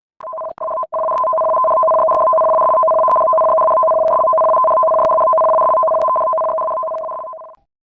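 Steady electronic tone of two pitches sounding together, like a telephone dial tone. It breaks off briefly just after it starts, then holds for about seven seconds before fading out.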